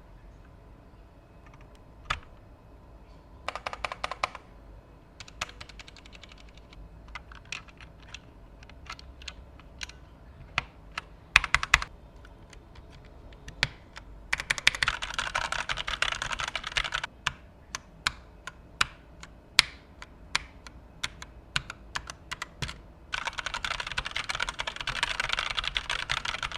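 Logitech Signature K865 mechanical keyboard with TTC Red linear switches being typed on. There are scattered single keystrokes and short runs, and two long spells of fast continuous typing, one in the middle and one near the end.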